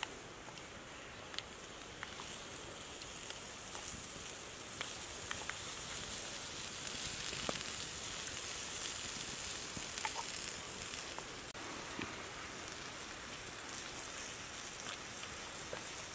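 Cockles in their shells sizzling on a hot plate over a wood fire as sauce is spooned onto them: a steady hiss with scattered small pops and crackles, swelling a little midway.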